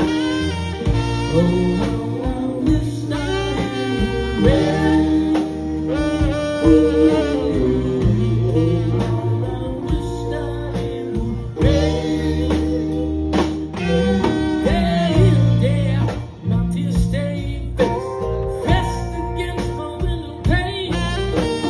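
Live band playing an instrumental solo break of a slow soul ballad: a bending lead melody over a steady bass and rhythm section, with no vocals.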